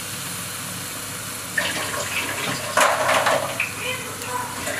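Water poured into a pan of masala and tomato purée frying in oil. A steady frying sizzle, then about one and a half seconds in the water goes in with a louder splashing rush that peaks near the middle and dies back.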